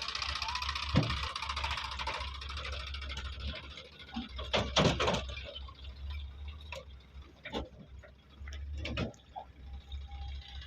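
Engine running low and steady, with a hiss that fades over the first few seconds and several knocks and thumps, loudest in a cluster about halfway through.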